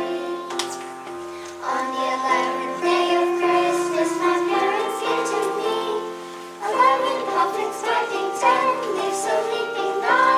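Children singing a song together over musical accompaniment, with held notes and wavering sung lines.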